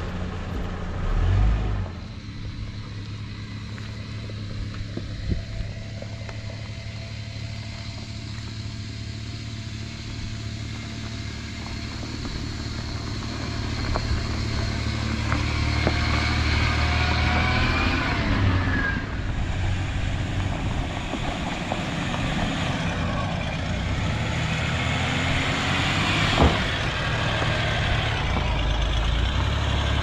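Four-wheel-drive engines: a steady drone while driving along a dirt track, then an engine revving up and down, its pitch rising and falling, as a 4WD crawls over a rocky, rutted slope.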